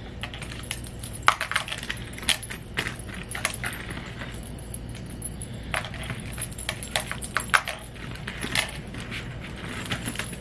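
Irregular light clicks and taps from a phone and its screen protector kit being handled.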